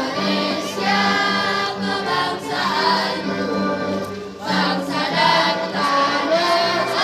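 A children's choir singing in unison, holding sustained notes with short breaks between phrases.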